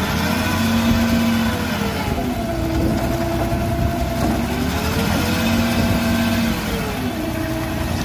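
Diesel dump truck engine running while the truck tips its loaded bed to dump soil, its pitch slowly swelling up and down twice.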